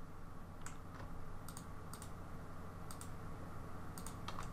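Computer mouse clicks and keyboard key presses: scattered sharp clicks at uneven intervals, with several in quick succession near the end, over a faint steady low hum.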